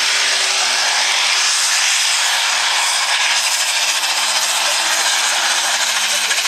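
Light pro stock pulling tractor's turbocharged diesel engine running flat out under load as it drags the pulling sled, a loud steady sound with a faint wavering engine tone underneath.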